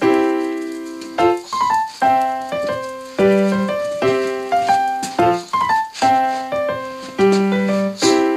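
Background piano music: a light melody of struck notes, each fading away, in short phrases that repeat.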